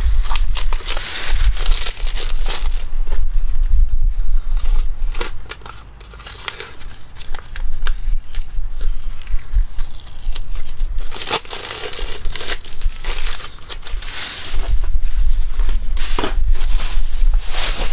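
Clear plastic wrapping crinkling and tearing as it is stripped off a new roll of PVC pipe wrap tape, in bursts, with a short lull about six seconds in.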